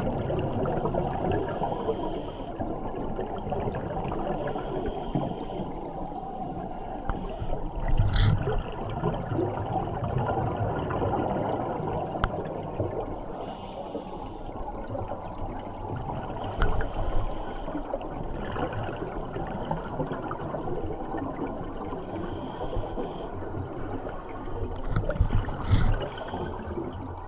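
Underwater recording of scuba divers breathing: a steady rush of bubbling water, with bursts of exhaled bubbles from the regulators every few seconds.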